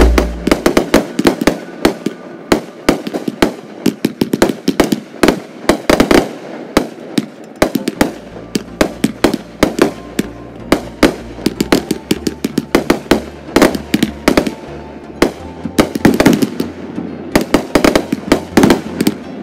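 Aerial fireworks shells bursting overhead: a rapid, irregular string of sharp bangs and crackles with no break, thickest a few seconds before the end.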